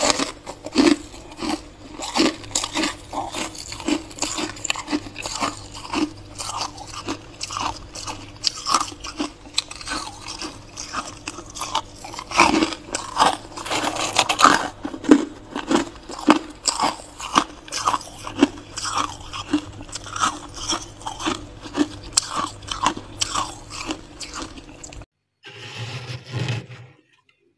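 Freezer frost being chewed: a steady run of crisp crunches, about one or two a second, over a low steady hum. The crunching and hum cut off abruptly near the end.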